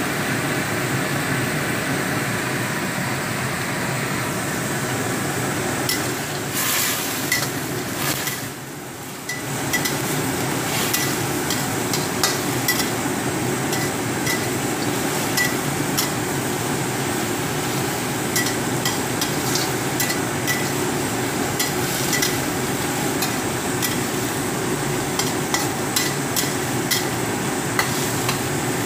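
Green bell pepper stir-frying in a stainless steel wok: oil sizzling steadily while a spatula stirs and scrapes the vegetables, with frequent light clicks and taps of the spatula against the pan.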